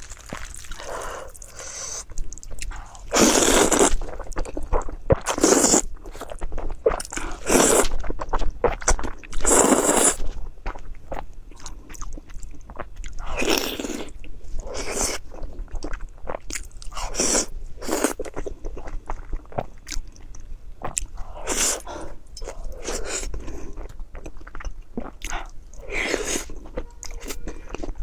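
A person eating close to the microphone, chewing and biting food in irregular bursts. The louder bursts come in the first ten seconds.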